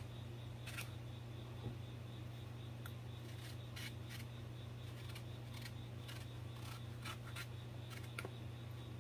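A small knife slicing lengthwise strips off a hand-held eggplant: a few faint, irregular cutting clicks and scrapes over a steady low hum.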